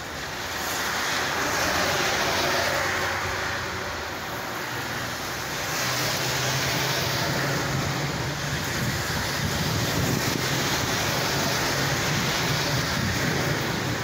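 Heavy rain with rolling thunder. The rumble swells about a second in and again around six seconds in, and a low roll carries on beneath the rain after that.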